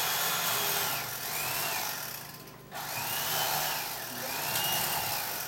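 Electric carving knife running, its motor whine rising and falling in pitch as the blade works. It dies away about two and a half seconds in, then starts again.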